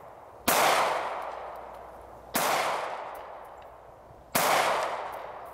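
Three handgun shots fired about two seconds apart, each cracking sharply and then fading away over a second or more.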